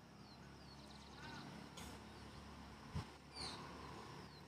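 Faint background birds calling, a few short chirps and one small warbling call, with a couple of soft clicks.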